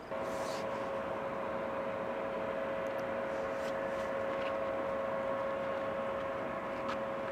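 Distant twin-engine jet airliner on approach: a steady engine drone with a fixed whine over a rushing noise.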